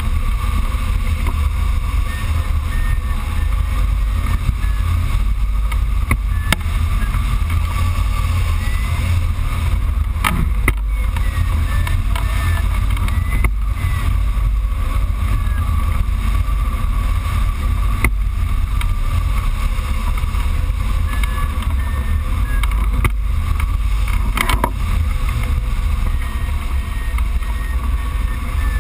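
Steady, loud rush of airflow buffeting the microphone of a camera mounted on a hang glider in flight. Short high electronic beeps come through now and then, the glider's variometer signalling lift.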